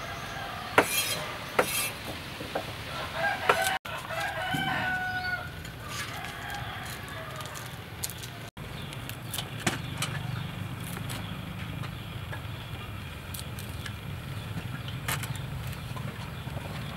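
A few sharp knife strikes on a wooden cutting board in the first two seconds, then a rooster crows about four seconds in, one long held call. After that only a low steady background with scattered faint clicks.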